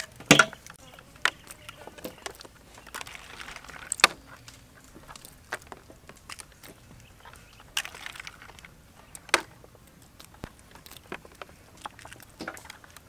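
Irregular light clicks, knocks and rustling of food being handled: an egg dropped into a metal bowl, then raw chicken feet being picked up and tossed into a plastic basket.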